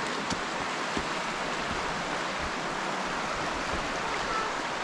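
Creek water running over rocks: a steady wash of flowing water.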